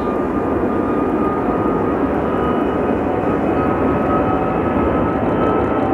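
Airbus A380 taking off, its four turbofan engines running at takeoff power as it rolls down the runway and lifts its nose: a loud, steady noise with a thin whine above it.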